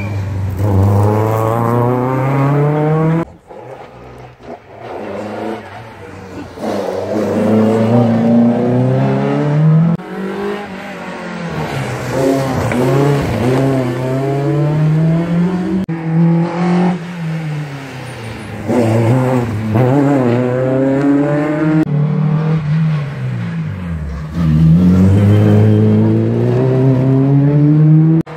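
Rally cars passing one after another at speed, their engines revving hard and climbing in pitch, then dropping back with each gear change. Several passes in turn, each cut off suddenly.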